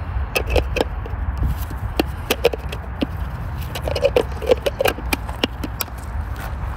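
Plastic mini food chopper being pressed down by hand again and again, a run of sharp uneven plastic clacks as its blades chop dill in oil, over a low steady rumble.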